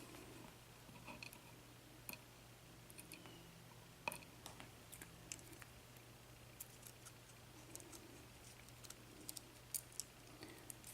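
Faint, scattered small metallic clicks and ticks as the top pins and springs are worked out of a Baldwin 5-pin lock's housing, over a steady low hum.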